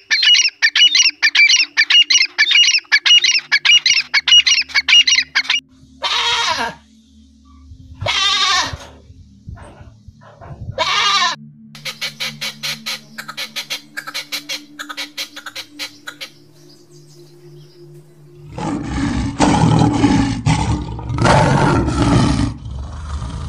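Red-legged partridge calling in a fast run of repeated high chirps, then a few separate falling bird calls and a rapid ticking. For the last five seconds a lion roars, several loud, rough calls.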